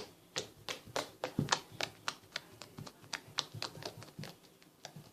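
Fingers tapping and pressing fluffy shaving-cream slime, making quick sharp clicks and little pops, about four or five a second, that stop near the end.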